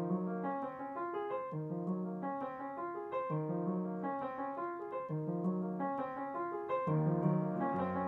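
Piano music: repeating broken-chord figures over low bass notes, growing a little fuller about seven seconds in.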